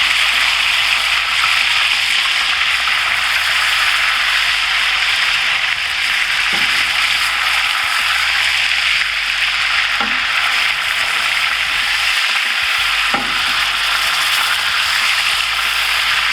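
Beef smash burger patty frying in bacon grease on a cast iron pan: a steady, loud sizzle. Three faint clicks come about six, ten and thirteen seconds in.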